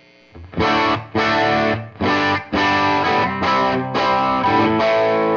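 Electric guitar played through an EarthQuaker Devices Monarch FET overdrive pedal: a run of short, choppy distorted chords about twice a second, then a chord left ringing near the end.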